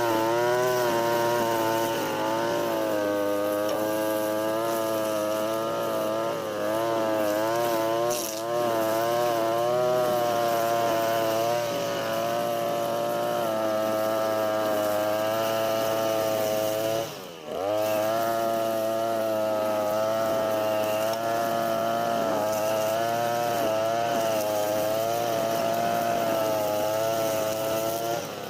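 Europa Hilt EH4326 (TB43) two-stroke brush cutter running at high throttle, its engine pitch wavering as it cuts under load. About two-thirds of the way through the throttle is briefly let off, and the engine drops sharply before revving back up.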